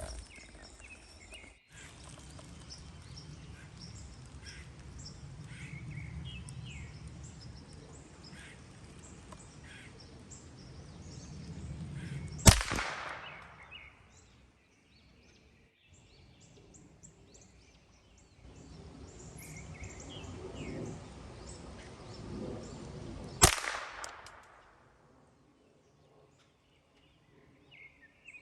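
Two shots from a Ruger 10/22 .22 rifle, about eleven seconds apart, each a sharp crack with a short ringing tail. Birds chirp faintly in between.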